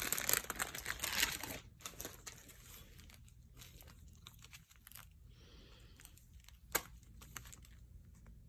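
Small plastic bags of diamond painting drills crinkling as they are handled. The crinkling is dense for the first second and a half, then turns to scattered light crinkles with one sharper click about seven seconds in.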